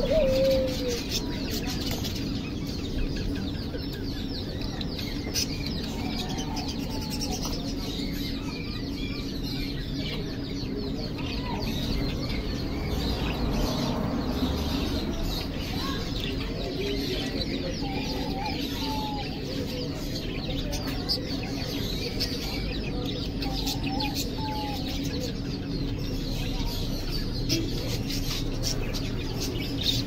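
Caged doves and other small birds: many high chirps and twitters throughout, with occasional short, low coos from the doves, over a steady low hum.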